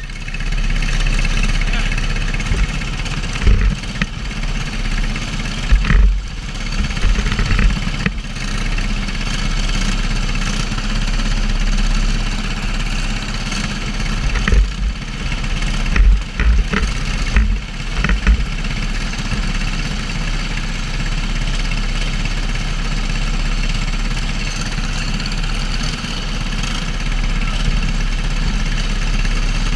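Racing kart engines idling steadily on the grid, with a few loud low thumps through the middle.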